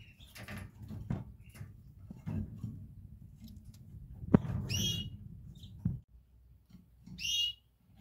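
Two short, high canary calls, one about halfway through and one near the end. Beneath them runs a low rumble with scattered clicks, the sharpest just before the first call.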